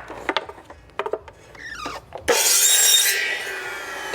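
A few light knocks and clicks of wood being handled, then a little over two seconds in an electric power saw starts and cuts into wood. After the cut its whine falls slowly in pitch as the blade spins down.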